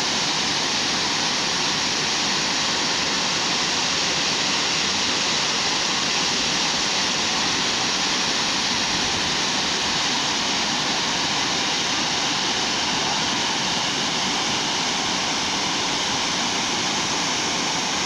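Waterfall cascading down broad rock slabs into a pool: a steady, unbroken rush of falling water.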